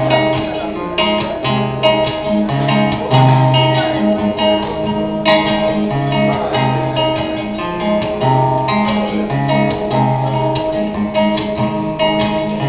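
Acoustic guitar played solo in an instrumental passage: strummed chords over a repeating pattern of low bass notes, in a steady rhythm.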